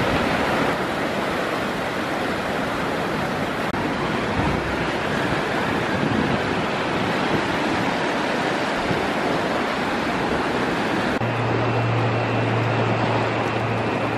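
The River Lune in spate after Storm Desmond: fast, swollen floodwater rushing and churning in white-water waves, a dense steady wash of water. About eleven seconds in, a steady low hum joins it.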